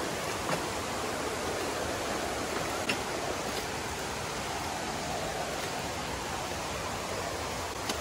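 Steady rush of flowing river water, with a couple of faint knocks in the first few seconds.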